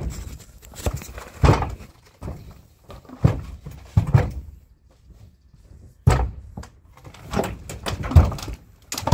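A young horse's hooves knocking and thudding on a horse trailer's ramp and floor as it steps up during loading, in irregular heavy knocks about a second apart.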